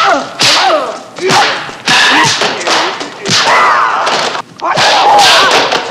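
Intro sound effects: a series of loud whooshing hits and thuds, about one a second, some with short sliding tones.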